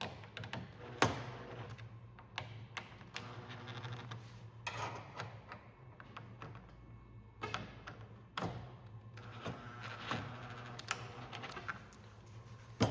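Irregular clicks, taps and knocks of hands tightening the clamps of an oar jig around an oar shaft, with a sharper knock about a second in, over a steady low hum.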